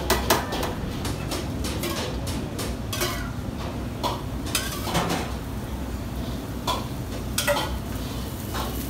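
Metal spatula scraping and clinking against a flat steel griddle as a paper dosa cooks, in irregular strokes that are sharpest near the start, over a steady low hum.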